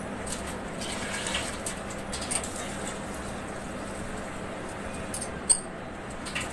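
Pot of water with marinated chicken heating on the stove: a steady hiss with scattered small pops and crackles, and one sharp click about five and a half seconds in.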